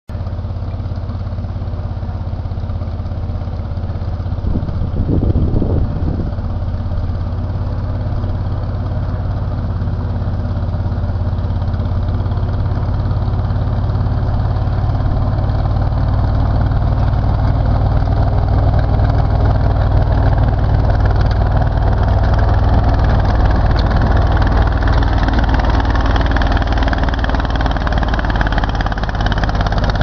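All-terrain vehicle with planetary reduction gears, its engine running steadily under way and slowly growing louder, with a short burst of low knocks about five seconds in.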